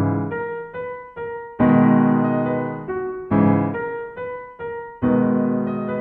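Background piano music: a slow, gentle line of chords struck about every second and a half, each fading away, with single notes in between.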